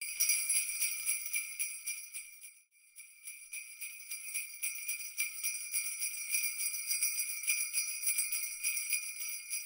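Jingle bells shaken continuously, a bright metallic jingle with rapid strikes. It dies away briefly about three seconds in, then starts again.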